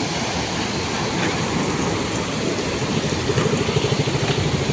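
Steady rushing of a river swollen by heavy rain, growing louder and choppier about three seconds in.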